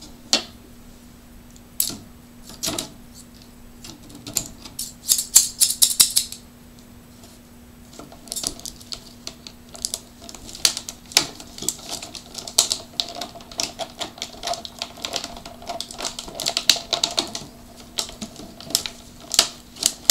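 Stiff clear plastic toy packaging crackling and clicking as it is handled, with sharp irregular clicks and snaps from heavy-duty scissors working at the zip ties that hold the toy in. There is a dense flurry of clicks about five seconds in, and the clicking goes on unevenly from about eight seconds to the end.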